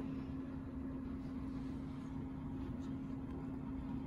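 A steady low mechanical hum at one pitch, over a faint low rumble.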